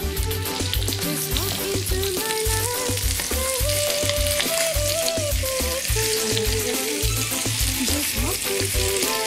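Marinated chicken thighs sizzling as they fry in hot oil in a non-stick wok, being turned over with a spatula. Background music with a melody and a steady bass beat plays alongside.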